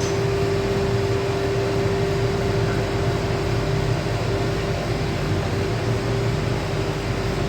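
Steady whirring hum of a fan or running machine: an even hiss with one constant mid-pitched tone and a low drone, unchanging throughout.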